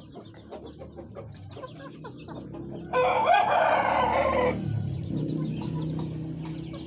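A rooster crows once, loud and drawn out for about a second and a half, starting about three seconds in, amid scattered small clicks and chicken clucking.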